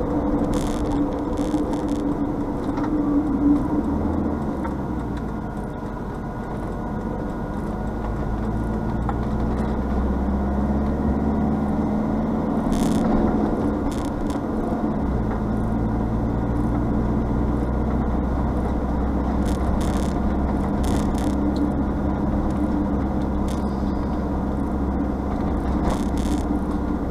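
Engine and road noise of a moving vehicle heard from inside its cab, a steady drone with a few short knocks and rattles.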